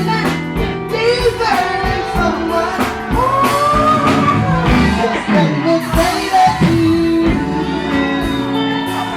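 Live blues band playing with a woman singing a long, bending melody over it; drum hits keep a steady beat.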